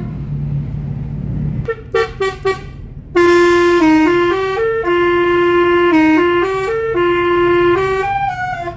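Telolet multi-tone vehicle horn. It gives a few short toots about two seconds in, then plays a continuous tune of stepped notes that stops just before the end, over a low engine hum.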